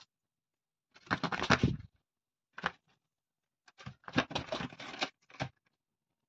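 An owl tearing and rustling paper: crackly ripping and crumpling in two spells, about a second in and again from about four to five and a half seconds in, with a short burst between them.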